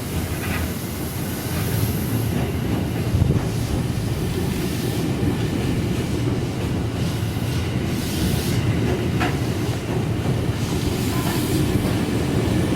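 Electric commuter train rolling along the platform at low speed, a steady rumble of wheels and motors with a few faint clicks of wheels over rail joints.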